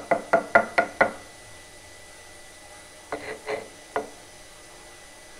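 Stone pestle knocking and scraping against a stone mortar (cobek and ulekan) while working spice paste into batter: a quick run of about six knocks in the first second, then three more about three seconds in.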